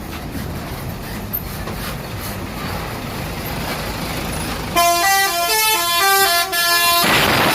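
A bus's engine runs as it draws near, then its multi-tone 'telolet' horn plays a short melody of stepped notes for about two seconds. Near the end, a loud rushing noise takes over.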